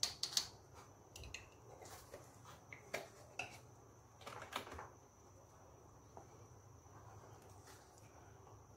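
A pot of thick mee rebus gravy simmering on the stove, with scattered soft pops and light knocks over the first few seconds, the loudest right at the start. A faint steady high whine runs underneath.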